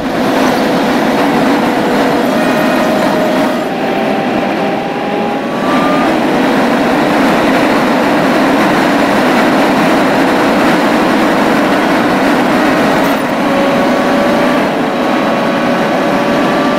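Road and wind noise inside a four-wheel drive cruising at highway speed: a loud, steady rush, with faint tones that slowly rise in pitch now and then.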